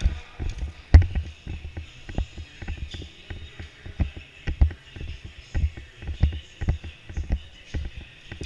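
Irregular, heavy footsteps and gear knocks from an airsoft player moving about, one or two thumps a second, with a few sharper clicks over a steady background hiss.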